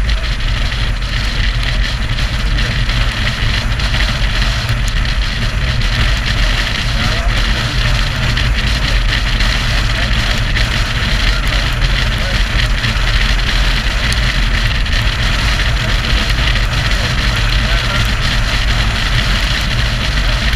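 Motorcycle riding at steady road speed: wind rushing over the rider's microphone on top of the engine's steady drone.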